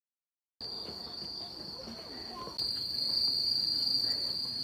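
Chorus of autumn crickets: a steady, unbroken high-pitched trill that starts abruptly about half a second in and grows louder about two and a half seconds in.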